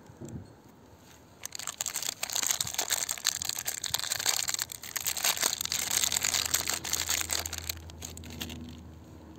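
A bar soap's wrapper crinkling and tearing as it is pulled open by hand: a dense crackle that starts about a second and a half in and dies away near the end.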